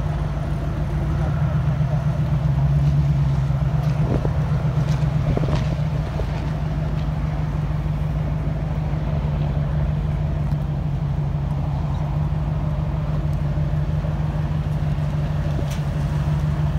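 A vehicle engine idling steadily close by, a low even rumble, with a few faint clicks around four to six seconds in.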